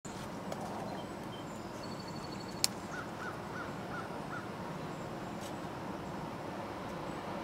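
Low steady rumble of a train approaching inside a railway tunnel, with a bird calling five short notes about three seconds in, just after a single sharp click.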